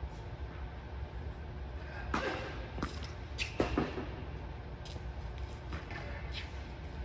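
A few sharp knocks of a tennis ball and short squeaks from court shoes on an indoor hard court, bunched between about two and five seconds in, over a steady low hum that echoes in the large hall.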